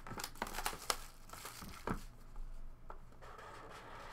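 Cardboard 2016 Leaf Best of Basketball box and its wrapping handled and opened by hand: faint crinkling and tearing, with scattered small ticks and a longer scraping rustle near the end.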